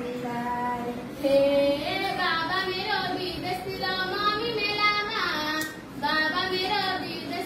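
A girl singing a verse of a Nepali dohori, a sung back-and-forth folk exchange, with held notes that glide up and down and a short break about six seconds in.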